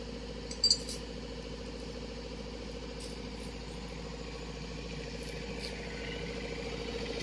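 An engine idling steadily with a pulsing hum, slowly growing louder toward the end, with a couple of brief clicks about a second in.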